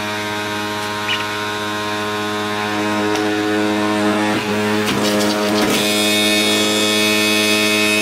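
Cuisinart 1000-watt centrifugal juice extractor running with a loud, steady motor hum while juicing apples. A few times in the middle the pitch dips and wavers with brief crackles as apple pieces load the spinning cutter.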